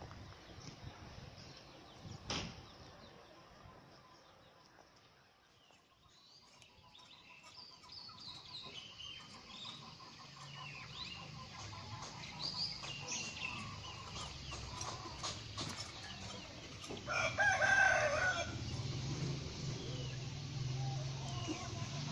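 A rooster crows once, about three-quarters of the way through; it is the loudest sound here. Short clucks and chirps come before it, and a low steady hum runs underneath from about halfway.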